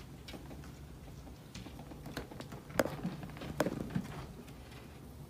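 A cat scrambling out of a clear plastic storage bin and up a wall: scattered light knocks and scrapes, with two sharper knocks a little past halfway.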